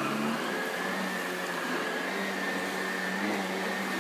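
Miele S8 Kona canister vacuum cleaner running on a rug with the motor of its powered beater-bar head switched on: a steady rush of suction with a high whine.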